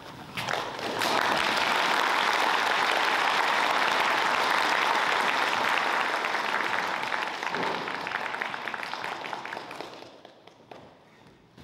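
Audience applauding: the clapping starts about half a second in, swells quickly and holds, then thins out and dies away near the end.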